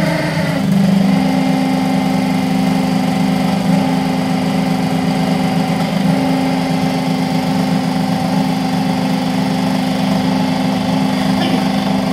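Electric egg-breaking machine running, its motor-driven drum giving a steady loud hum; the pitch shifts once about half a second in, then holds steady.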